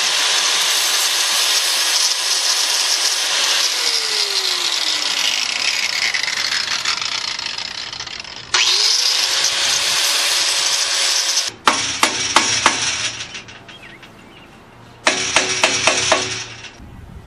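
Handheld electric angle grinder grinding a steel railing, its motor tone falling as it is switched off and spins down. A few seconds later it is started again, winds back up, runs briefly and stops. After that come a few sharp metallic clicks and a short stretch of rubbing or scraping on the railing.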